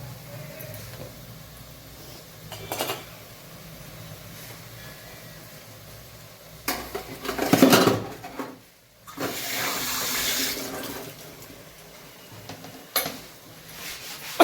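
Kitchen sounds: water running or being poured, with pots and utensils clattering, loudest about seven to eight seconds in, then a stretch of water hiss.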